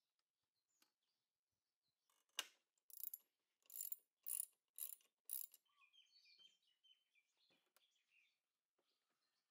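Hand ratchet clicking in about six short bursts over some three seconds as it loosens the nut on a scooter's front axle.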